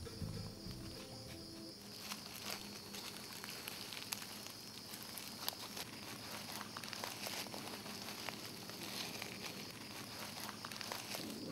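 Faint rustling and crackling of dry leaf litter as a Sunda pangolin walks over the forest floor, over a steady high-pitched buzz of night insects.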